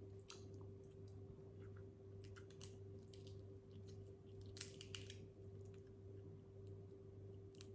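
Faint close-up chewing of seafood boil, with scattered small crunches and clicks, the loudest cluster about halfway through, over a steady low electrical hum.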